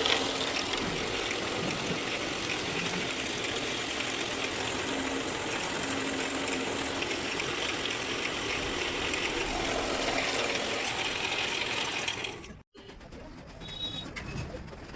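A woodworking power tool running steadily on wood, then cutting off abruptly near the end, leaving quieter workshop sounds.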